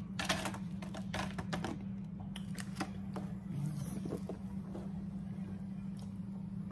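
Boiled peanuts in the shell dropping from a wire mesh skimmer onto a paper plate: a scatter of light clicks and taps in the first three seconds, fewer and fainter after, over a steady low hum.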